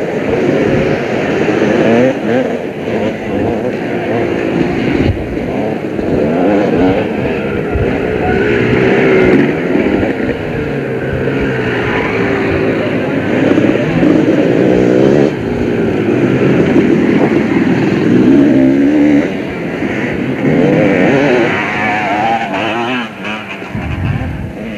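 Motocross bikes racing on a dirt track, several engines revving up and down in overlapping waves as the riders accelerate and change gear.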